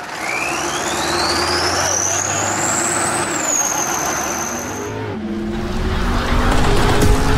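Heavy vehicle engine running with a high whine that rises in pitch for about three seconds, then dips and holds. About five seconds in it gives way to deep bass tones.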